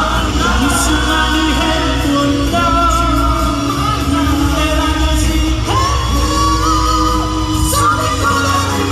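A song performed on stage: singing over musical accompaniment with a steady deep bass.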